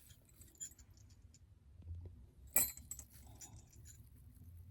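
Small metal jingle bells clinking and tinkling faintly as they are handled and threaded onto pipe cleaners, with one sharper click about two and a half seconds in.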